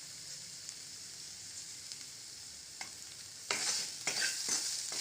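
Grated coconut and spice masala frying in oil in a kadai with a faint steady sizzle. About three and a half seconds in, a spoon starts scraping and stirring through it in the pan.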